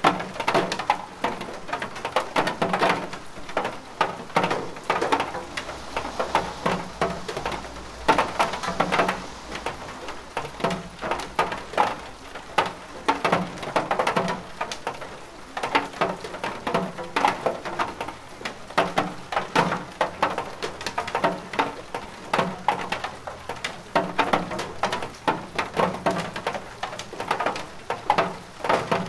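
Recorded rain, a dense and irregular patter, used as the masking bed of a subliminal audio track.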